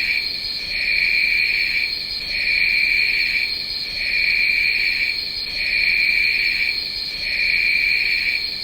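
Stop Motion Studio sound effect of night insects chirring: a steady shrill high tone with a lower chirr that pulses on and off about every second and a half. It cuts off suddenly near the end.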